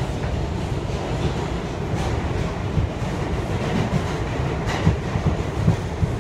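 New York City subway car running through the tunnel, heard from inside the car: a steady rumble of wheels on rails with irregular clacks, one sharper clack nearly five seconds in.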